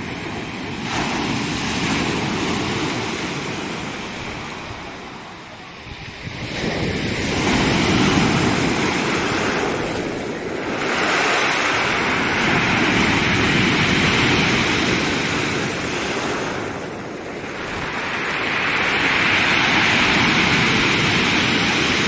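Heavy storm surf on a pebble beach: waves breaking and washing up and back over the stones. The noise swells and falls back every five or six seconds.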